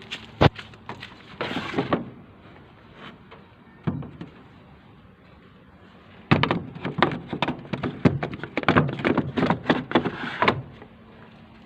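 Knocking and clattering from an old Beko BKY 2313 C washing machine with a rusted, failing drum bearing. A sharp knock comes about half a second in and a thump near four seconds in. From about six seconds in, a dense run of irregular knocks lasts about four seconds.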